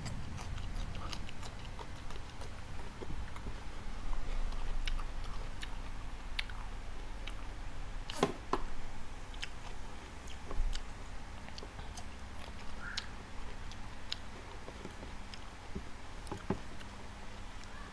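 Close-miked chewing of a crunchy steamed broccoli stalk, with scattered crisp crunching clicks and wet mouth sounds. A louder knock comes about eight seconds in, as a small ceramic sauce dish is moved.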